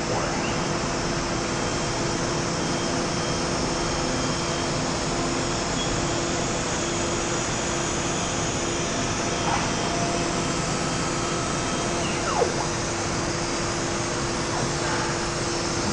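Multicam 304 M Series CNC router running: a steady rushing whir with a constant hum, and a few faint brief whines as the gantry travels across the table.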